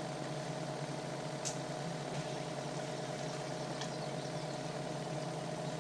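Boat motor running at a steady low speed, a constant even hum.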